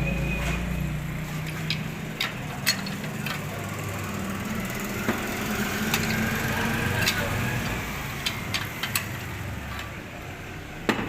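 A low, steady engine-like hum that wavers and fades toward the end, with scattered sharp clicks and knocks throughout.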